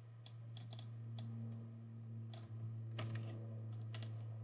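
Computer keyboard keys and mouse buttons clicking in an irregular scatter, over a steady low hum.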